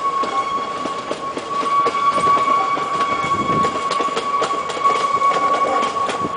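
Small steam train with a passenger coach running past: clicking wheels and a working steam locomotive, with a steady high-pitched tone throughout.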